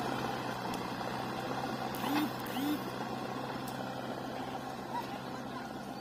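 JCB 3DX backhoe loader's diesel engine running steadily as the machine drives away, its sound fading gradually. A few short arching calls sound over it about two to three seconds in.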